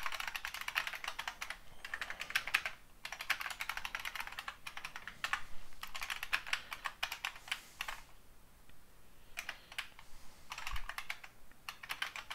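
Typing on a computer keyboard: quick runs of keystrokes, pausing briefly about three seconds in and again for about a second after the eight-second mark.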